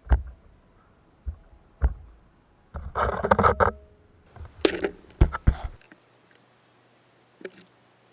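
A few sharp knocks, then a scraping rustle lasting about a second, then a quick cluster of knocks, with a faint steady hum near the end.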